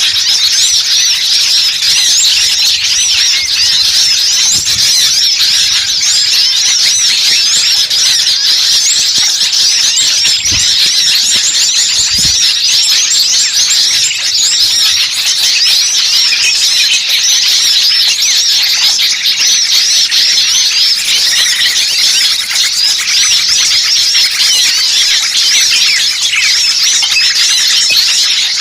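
Dense, unbroken chorus of many small songbirds chirping and chattering rapidly over one another, high-pitched and steady: a bird-luring call recording of agitated small birds.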